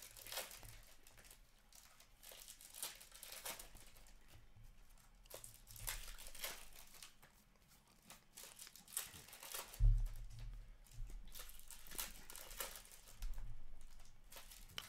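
Hockey trading cards being flicked through and handled, with dry rustling, crinkling and soft clicks of card against card. A dull thump about ten seconds in.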